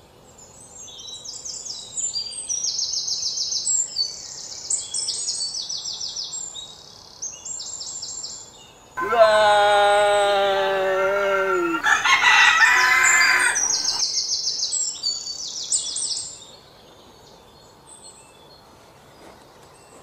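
Short, rapid, high-pitched chirping trills come in bursts through the first half and return briefly later. In the middle a man gives a long, loud open-mouthed cry of about three seconds, followed by a rougher second shout.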